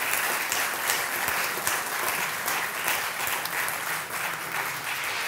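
A large seated audience applauding: many hands clapping together at a steady level.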